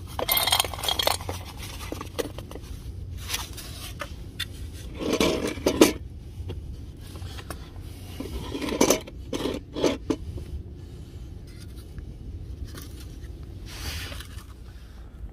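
Dry cat kibble poured from a bowl rattles into a stainless steel bowl in the first second or so. Several scrapes and knocks follow as bowls are handled and moved on concrete.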